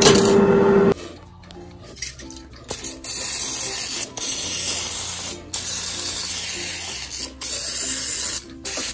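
Aerosol olive oil cooking spray hissing in several short bursts as it coats a non-stick air fryer basket.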